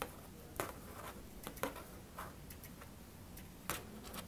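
A handful of faint, irregular clicks of aluminum knitting needles tapping together as knit and purl stitches are worked.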